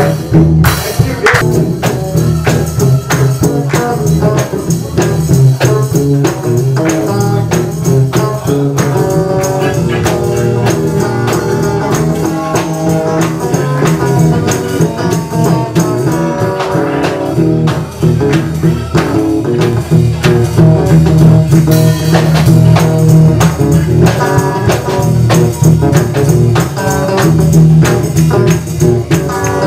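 Live gospel band playing: guitar over a drum kit and tambourine, with a steady beat.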